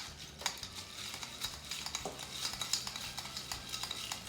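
A drink being stirred in a Hurricane glass full of ice: quick, uneven clinks and rattles of ice against the glass, going on throughout.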